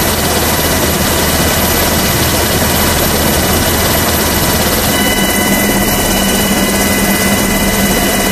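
Loud, steady aircraft engine noise on a carrier flight deck: a dense rush with several thin, high whining tones held steady, and a low hum that comes in about five seconds in.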